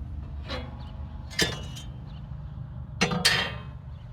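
Metal clinking and knocking: three separate strikes of steel on steel, the last the loudest, each ringing briefly, as a steel square is set against the sawmill's circular saw blade.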